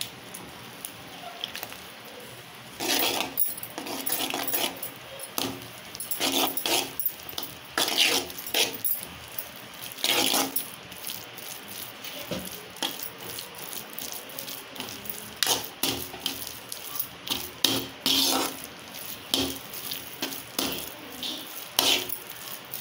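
Steel spoon stirring and scraping a thick rice-flour dough around a stainless steel kadai, in irregular scraping strokes with short pauses between them.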